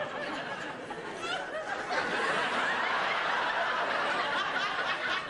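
Audience laughing, many voices at once, the laughter swelling about two seconds in and holding.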